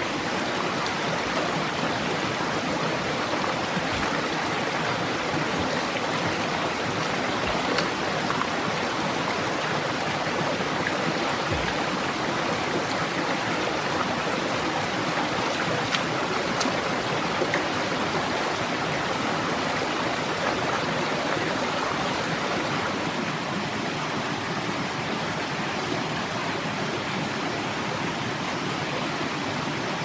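Shallow rocky stream flowing: a steady, even rush of water, with a few faint knocks now and then.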